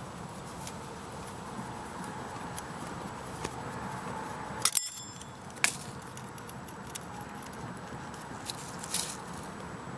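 A few sharp metallic clicks and taps, the loudest about halfway through, from a screwdriver working on the small metal parts of an old watt-hour meter being taken apart. A steady hiss runs underneath.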